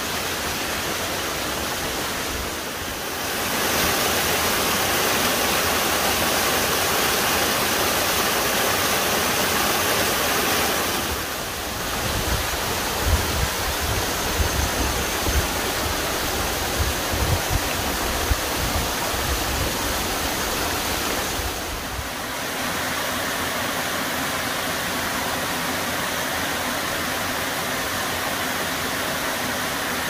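Moss-covered mountain waterfall and its stream pouring into a rock pool: a steady, even rush of falling water. The sound shifts briefly about 3, 11 and 22 seconds in, as the view changes between the falls and a cascade.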